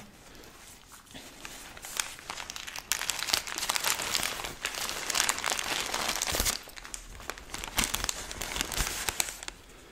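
Paper wrapping of a large rose bouquet crinkling and rustling as it is handled. The sound is light at first, grows busy about two seconds in, and dies down just before the end.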